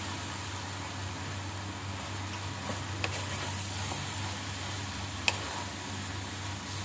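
Food sizzling gently in a frying pan as boiled macaroni is tipped in and stirred with a wooden spatula, over a steady low hum. A sharp tap of the spatula on the pan sounds about five seconds in.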